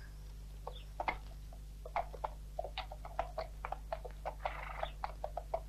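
Horses' hooves clopping at a walk on hard ground: a run of light, irregular clops, several a second.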